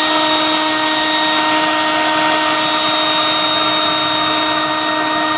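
Wood-gas system running steadily: an even motor whine, typical of the blower that draws the gas through the gasifier and scrubber to be flared off, over a rushing hiss.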